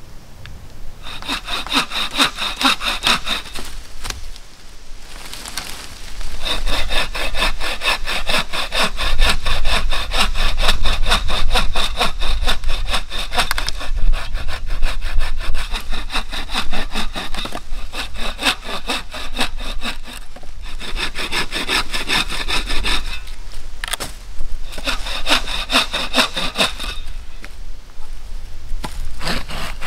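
Wooden-framed bucksaw cutting through fallen branches with fast back-and-forth strokes, in several bouts with short pauses between.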